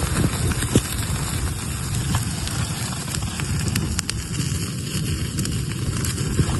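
Small campfire burning, crackling with a few sharp pops.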